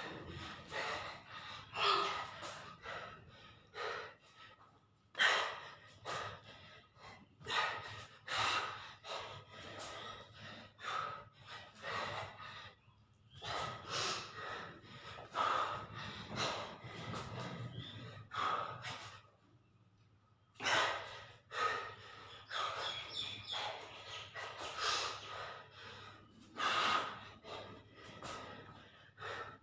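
A man breathing hard while doing dumbbell push-ups: quick, forceful exhalations and gasps, about one or two a second, with a short lull about two-thirds of the way through. This is the panting of heavy exertion.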